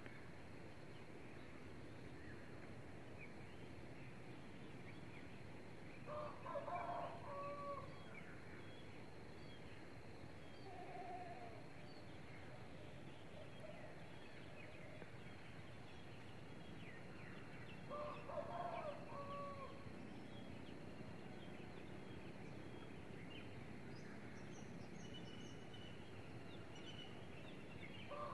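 Faint rooster crowing, one long call about every ten to twelve seconds, over a steady outdoor background hiss. Small birds chirp now and then in between.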